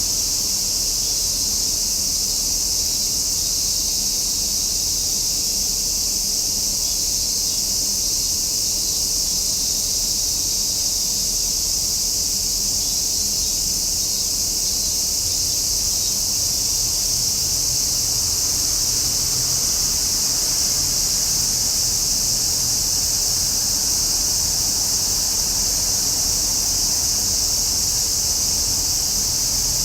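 Cicadas singing in summer: a steady, high-pitched continuous drone with no breaks.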